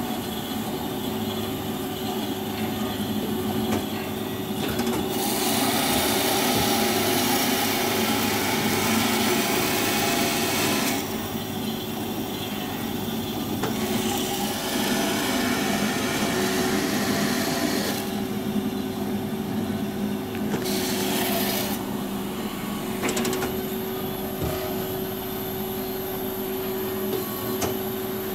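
COSEN C-260NC horizontal band saw running: a steady motor hum, with stretches of louder hissing noise that come and go every few seconds.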